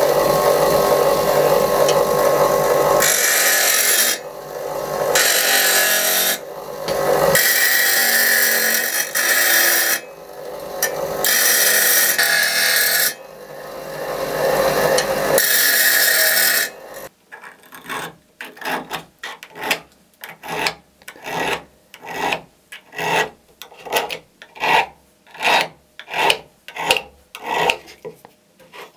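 Bench grinder running and grinding a steel compass leg in several passes with short pauses, for a little over half the time. Then hand filing of the steel tip, even strokes about one and a half a second.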